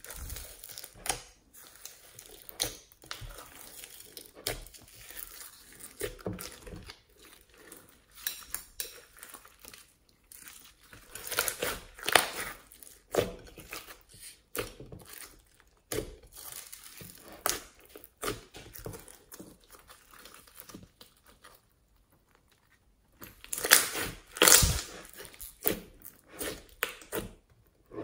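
Hands squeezing and kneading slime packed with floam beads and glitter: sticky squelches mixed with irregular crackling and popping from the beads and trapped air. There is a short lull about three-quarters of the way through, then a louder run of crackles.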